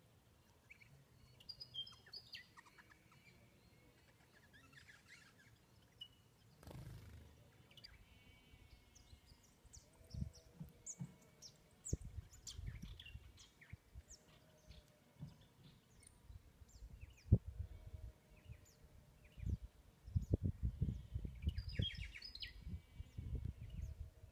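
Wild birds calling with short high chirps and trills, on and off. From about the middle on, frequent low rumbles and knocks that grow busier near the end are louder than the birds.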